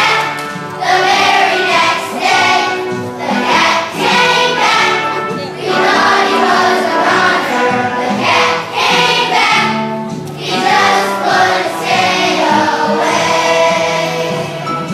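A large children's choir singing together in phrases, with short breaks between them.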